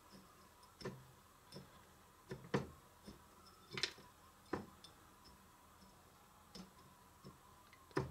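Faint, irregular clicks and light crunches of chopped pecans shifting against a ceramic bowl as a frosted cake layer is pressed and rolled through them.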